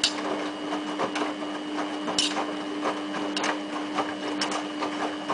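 Samsung WF8804RPA front-loading washing machine turning its drum in the first rinse: a steady motor hum under irregular clicks and knocks.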